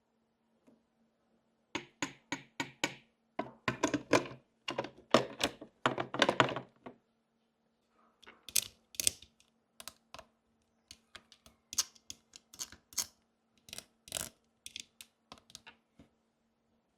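Light clicks and taps of small miniature toy pieces being handled and set down: quick clusters of clicks in the first half, then scattered single taps.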